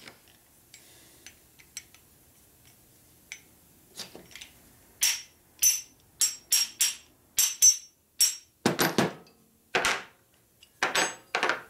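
A run of about a dozen sharp metal-on-metal taps and clinks from Panhead rocker-arm parts being worked at the bench. The taps start about five seconds in. The earlier ones ring thinly, and the last few are heavier.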